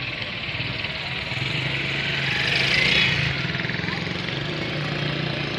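Street traffic: a motor vehicle engine running steadily, with a hiss that swells to its loudest about halfway through as traffic goes by, and voices in the background.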